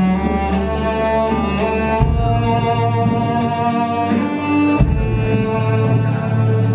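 Live band music with a bowed cello playing held melody notes over deep bass notes that change about every three seconds.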